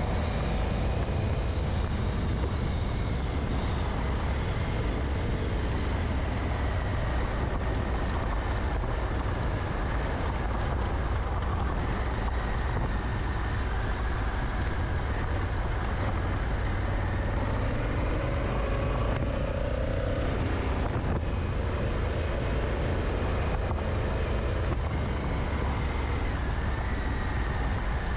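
Honda Africa Twin twin-cylinder motorcycle engine running while riding a gravel track, heard under heavy wind rumble on the bike-mounted camera's microphone. The engine note rises and falls once about two-thirds of the way through.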